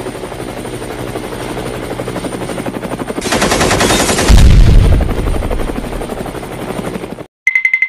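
Sound effects of a helicopter with rapid machine-gun fire, rising to a loud explosion with a deep boom about four seconds in. A short beeping tone comes in right at the end.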